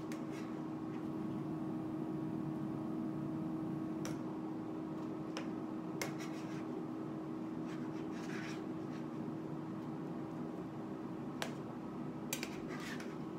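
Metal spatula scraping and tapping on a metal sheet pan as half-cooked beef patties are flipped: a few separate clicks and short scrapes. Under it runs a steady low hum.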